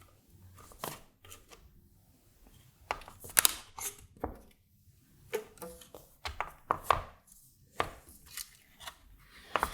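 Irregular clicks and knocks from hands adjusting the elastic bands around a row of toggle switches on a circuit board. The switches and bands shift and tap against the board and mounting plate about a dozen times at uneven intervals.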